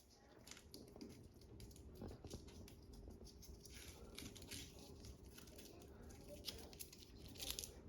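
Faint rustling and scattered light clicks of handling, over a faint steady hum, with a short cluster of slightly louder clicks near the end.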